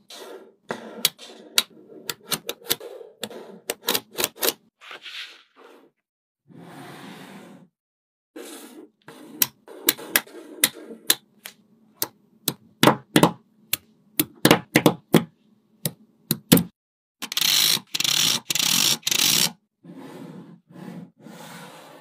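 Small magnetic balls clicking and snapping against each other as they are pressed into rows and slabs by hand, in quick irregular runs of sharp clicks. A few longer noisy stretches break in, the loudest about three-quarters of the way through.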